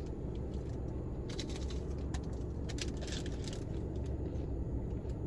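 A steady low hum, with a few short bursts of rustling or crackling about a second in, around two seconds in and again around three seconds in.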